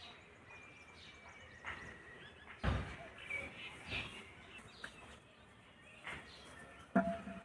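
Birds chirping faintly over quiet outdoor ambience, with a dull thump a little over two and a half seconds in and a smaller knock near the end.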